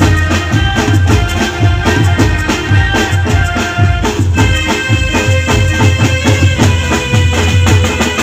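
Live garba folk music: a keyboard melody of held tones over a steady beat from the dhol and drum kit, the melody changing about four seconds in.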